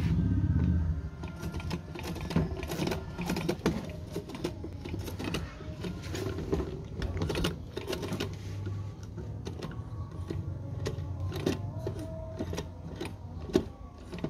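Old hand-crank Singer sewing machine being turned by its crank, the mechanism running with a steady clatter of quick clicks over a low hum. A louder low rumble comes in the first second.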